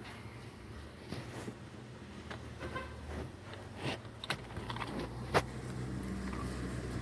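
Scattered small clicks and taps of a screwdriver prying at a wiring-harness connector lock and the plastic connector being worked loose from a steering-column clock spring, the sharpest click about five and a half seconds in. A low hum runs underneath.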